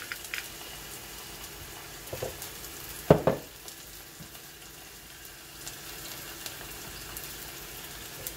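Chicken breasts sizzling steadily as they fry in a hot pan, with one loud thump about three seconds in.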